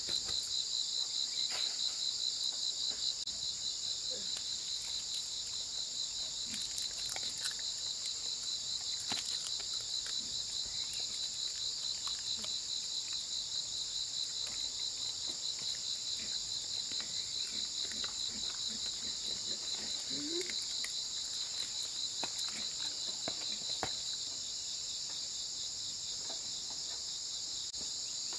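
A steady, high-pitched chorus of insects with a fast pulsing trill, running without a break.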